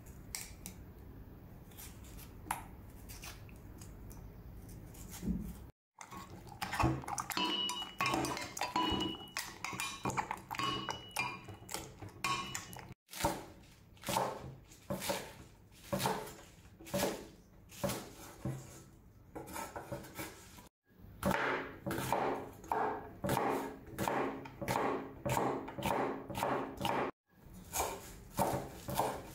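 Cleaver chopping spring onions and herbs on a wooden cutting board, in steady knocks of about two a second, broken by a few brief silent gaps. The first few seconds are quieter, with only a few light clicks as a small knife slices a tomato over a mortar.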